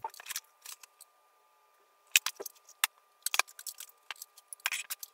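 Scattered light clicks and clatter of bench tools being handled as a Hakko soldering station is set down and set up for desoldering.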